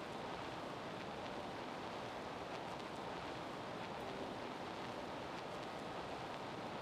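Steady, even background hiss, like an open microphone's noise floor, with no speech.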